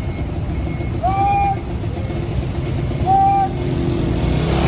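A diesel tour bus engine running, with its reversing alarm giving a short beep about every two seconds. Near the end the engine begins to rev up.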